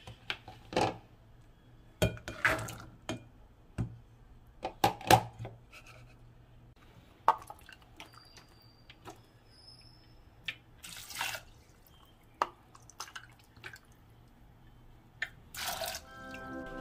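Soaked soybeans clattering as they are tipped from a plastic colander into a metal rice-cooker inner pot, in a run of sharp clicks and knocks over the first five seconds. Water is then poured over the beans from a measuring cup in short splashing pours, and background music begins at the very end.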